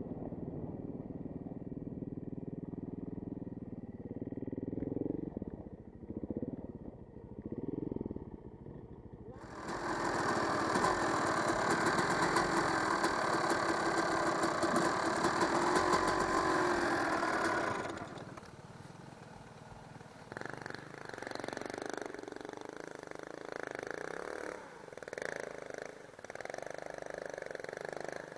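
Enduro dirt bike engines running and revving, with rising and falling engine pitch. About ten seconds in, a much louder, harsher engine sound comes in close by, holds for about eight seconds and cuts off suddenly, leaving quieter engine revving.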